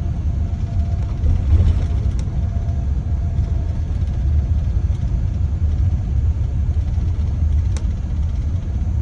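Steady low rumble of a car travelling at highway speed, heard from inside the cabin: road and engine noise, with two faint ticks.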